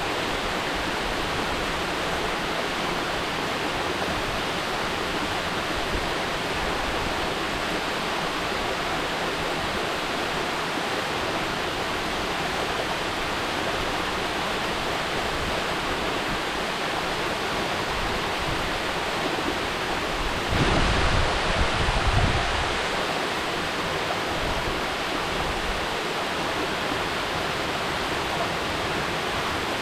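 Mountain waterfall pouring steadily, an even rushing noise of falling water. About two-thirds of the way in, a louder low rumble swells for about two seconds.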